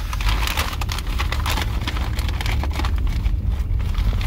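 Cardboard fast-food boxes and a paper bag being handled, with irregular crinkling, tapping and crackling, over a steady low rumble inside a car.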